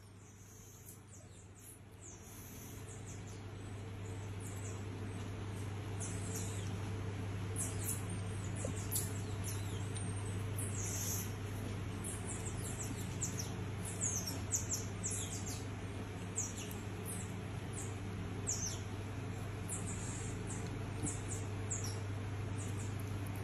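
A small monkey, a red-handed tamarin, giving many short, very high-pitched chirps that drop quickly in pitch, scattered singly and in little runs. Underneath is a steady low hum that grows louder over the first few seconds.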